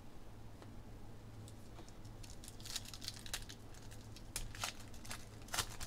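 Foil wrapper of a trading-card pack being handled and torn open: faint crinkling, with a run of sharp crackles in the second half, over a low steady hum.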